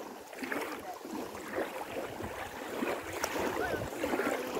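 Small waves lapping at the shoreline, with bathers' voices chattering in the distance.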